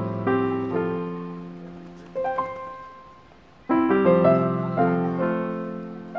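Background piano music: chords struck and left to fade, with a new phrase beginning about three and a half seconds in.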